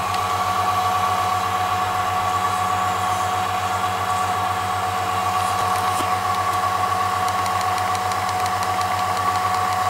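Vacuum pump running steadily while it evacuates a jam-jar chamber, a constant hum with a steady high whine on top.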